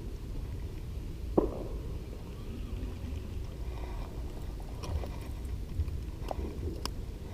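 Low rumble, like wind on the microphone, with a few sharp clicks or taps, the loudest about a second and a half in.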